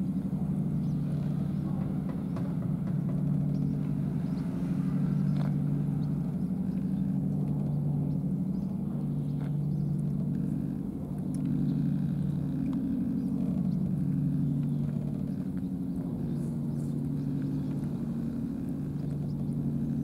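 An engine running at a steady idle: a low, even hum that holds for the whole stretch.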